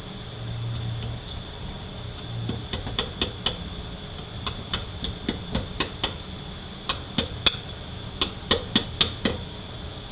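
Irregular series of sharp metal taps, about two a second, as tools work on a disassembled 4R75W transmission case, after a brief low hum in the first second.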